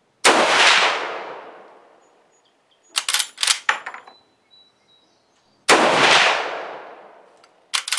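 Marlin 336 lever-action rifle in .30-30 Winchester firing two shots about five and a half seconds apart, each a sharp report that rings out for about two seconds. Between the shots, and again near the end, a quick run of metallic clacks as the lever is worked to eject the empty case and chamber the next round.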